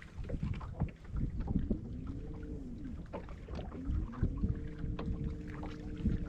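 Electric trolling motor on a bass boat whining, its pitch rising and falling as it speeds up and slows, then holding steady for the last couple of seconds. Under it is a low rumble with scattered small knocks.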